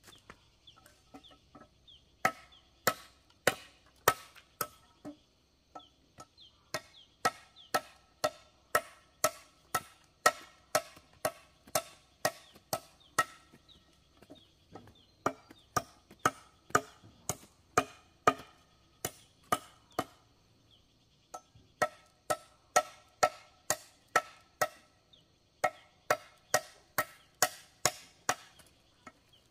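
A blade chopping into a hollow bamboo pole: sharp, ringing knocks about two a second, in runs broken by short pauses.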